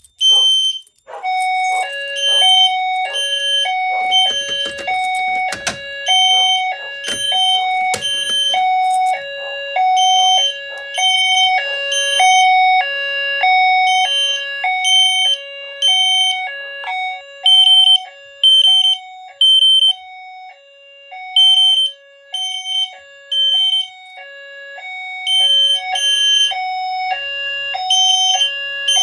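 Fire alarm system sounding in alarm: a high 3000 Hz horn tone beeping in groups of three (temporal pattern), joined about a second in by a lower two-note high-low tone alternating about once a second. A few knocks sound between about 4 and 9 seconds in.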